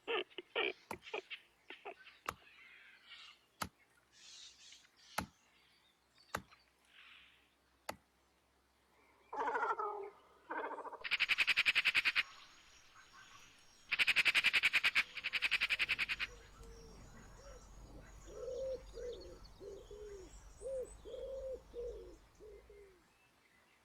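Wild birds calling at a lagoon: a string of sharp clicks in the first few seconds and high calls, then two loud buzzing rattles around the middle, followed by a run of short low calls repeated about once a second near the end.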